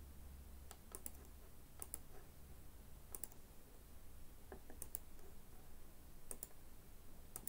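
Faint computer mouse clicks, each a quick press-and-release pair, about six of them spaced a second or so apart, over a faint steady low hum.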